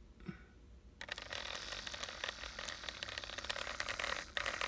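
Postwar American Flyer toy train locomotive's electric motor starting up suddenly about a second in, running free with its wheels off the track. Its armature, freshly greased worm gear and drive gearing make a fast, rattling whir, with a brief dip about four seconds in.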